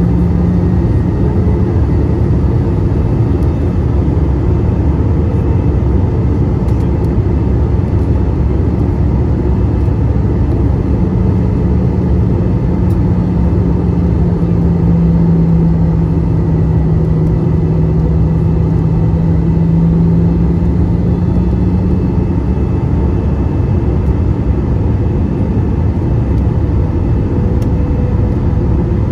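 Cabin noise inside an Airbus A320-214 in flight: a steady, loud rush of airflow and CFM56 engine noise. A low hum rises out of it for about ten seconds in the middle.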